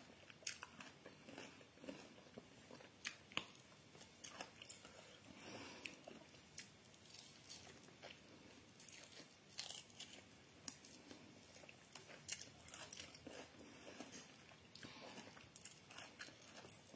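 A person eating by hand: faint, irregular mouth smacks and clicks of chewing and biting into food.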